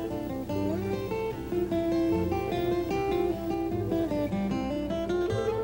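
Instrumental background music: a plucked acoustic guitar playing a tune of single notes.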